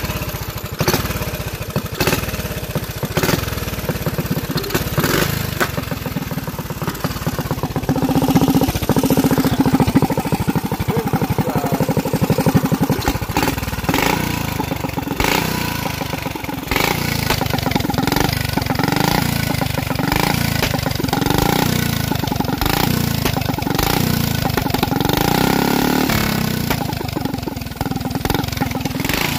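Methanol-fuelled flathead Briggs & Stratton minibike engine running on the stand, spinning the rear wheel, its speed rising and falling several times.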